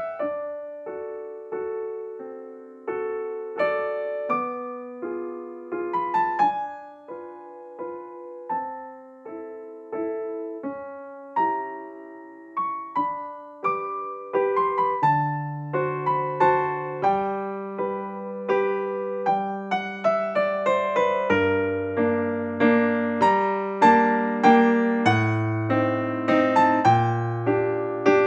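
Background piano music: a gentle melody of struck, fading notes, with a lower bass line joining about halfway through.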